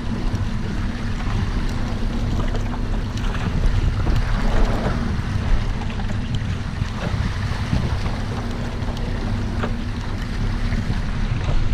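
A boat's engine running with a steady low hum, under wind buffeting the microphone and the wash of the open sea, with a few faint knocks.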